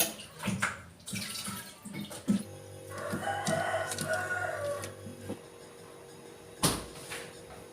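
A rooster crowing once, a drawn-out call about three seconds in, over a steady low hum. Brief knocks come before it, and a sharp knock near the end.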